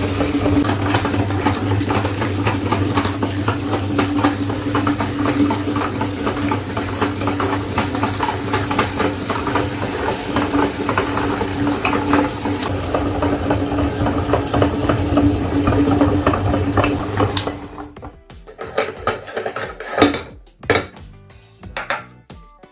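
Electric meat grinder running steadily, its motor humming under a dense grinding crackle as soft material is forced through. It cuts off suddenly about seventeen seconds in, leaving a few scattered clinks and knocks.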